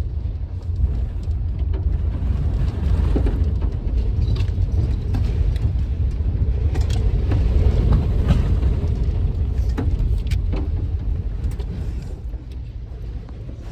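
Strong wind buffeting the microphone: a loud, unsteady low rumble, with scattered light clicks and rattles.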